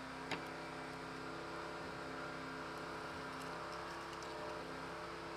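Steady hum made of several held tones, with one faint click about a third of a second in.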